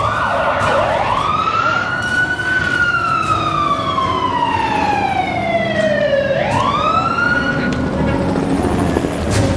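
Emergency-vehicle siren wailing: two quick rises in pitch, the second followed by a long slow fall over about four seconds, then a rise again, over a low rumble. A sharp knock sounds near the end.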